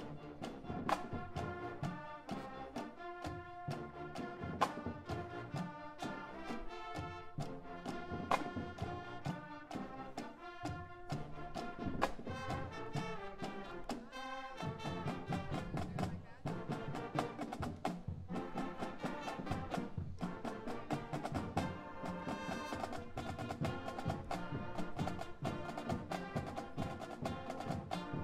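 High school marching band playing live: brass, saxophones, clarinets and sousaphones over drums that keep a steady beat.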